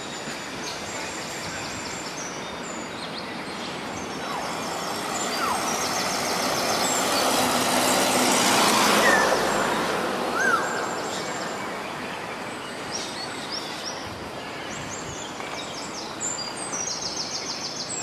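Outdoor urban ambience: a passing vehicle's noise swells to a peak about halfway through and fades away, while small birds keep up short high chirps and a few single whistled calls sound over it.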